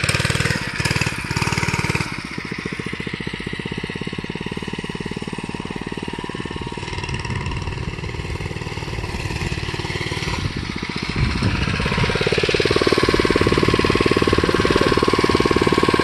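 Small 49cc single-cylinder mini bike engine running with a fast, even putter. About twelve seconds in it becomes louder and steadier.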